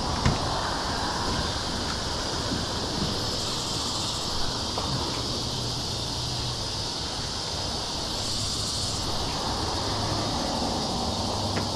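Steady rush of water pouring through a spillway, with a low hum underneath and a few faint ticks.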